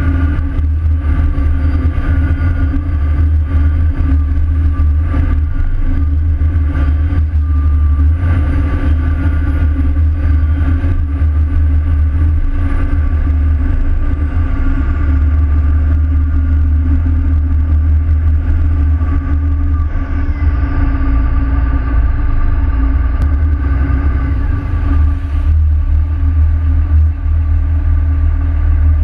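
Pilot boat's engine running steadily under way: a loud, even low drone with a steady hum above it.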